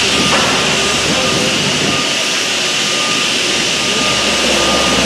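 Truck-mounted knuckle-boom crane's engine and hydraulics running steadily: a loud, even roar with a thin high-pitched tone that comes and goes.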